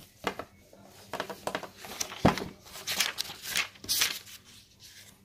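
Paper pages of a printed textbook being turned and handled, giving a series of short, irregular rustles and crinkles.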